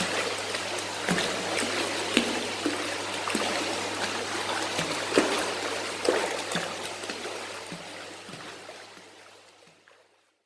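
Water trickling and bubbling, with irregular small pops and plinks over a steady rush and a faint low hum underneath, fading out near the end.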